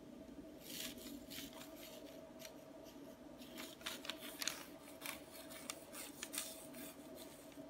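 Faint, irregular crinkling and rustling of a plastic piping bag squeezed in the hand while piping melted chocolate, over a steady low hum.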